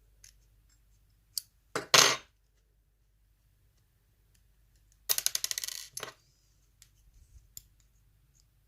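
Small metal objects being handled and set down on a hard surface: scattered clicks, a loud metallic clatter about two seconds in, and a rapid rattle a little after five seconds that fades out over about a second, like a small metal piece settling.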